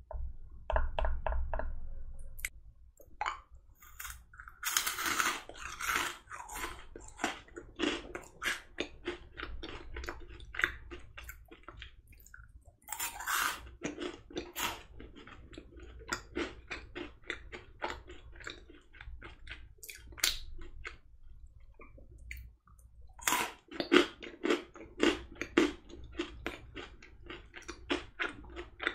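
Close-miked crunching and chewing of Maltesers, chocolate-coated malted milk balls. It comes in several bouts, each opening with louder crunches and trailing into quicker, softer chewing clicks.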